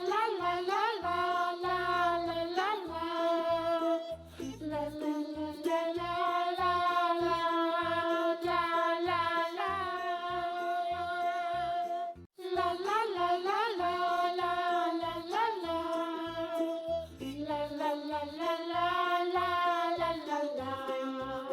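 Children's background music with a lead melody over a steady beat. It breaks off for a moment about halfway through.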